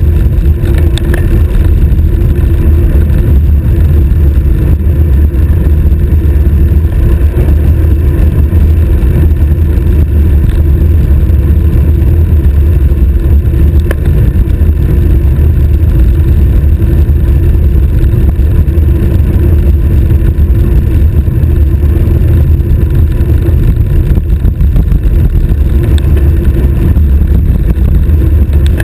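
Loud, steady wind buffeting a bicycle's stem-mounted GoPro on a fast road-bike descent, a continuous low rumble.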